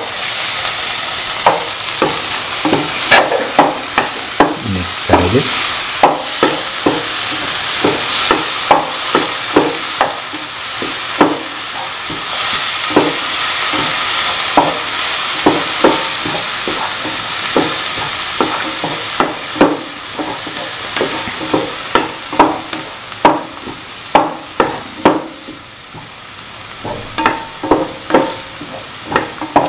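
Onions, shallots and a ground shallot-fennel paste sizzling in hot oil in a pan, with a spatula scraping and knocking on the pan bottom about once or twice a second as the mixture is stirred. The sizzle grows quieter near the end.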